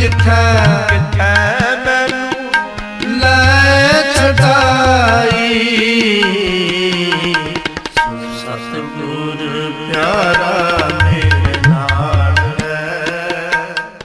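Sikh devotional kirtan music with tabla playing a rhythm, its bass drum gliding in pitch, under a sustained melodic line with no sung words.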